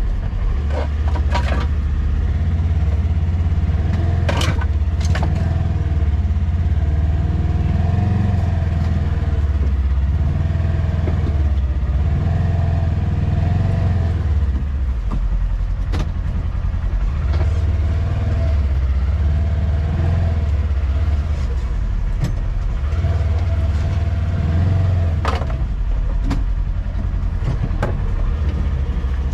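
Polaris Ranger Highlifter XP 1000 side-by-side's twin-cylinder engine running steadily at low speed as it drives out of a creek bed. There is a deep, steady rumble and a few sharp knocks.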